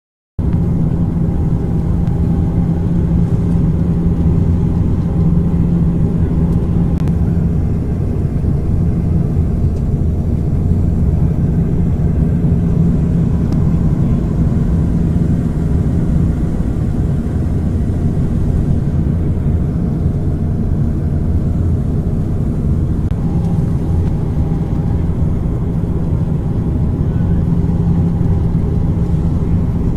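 Airplane during landing: a steady low rumble with a constant hum underneath, holding level throughout.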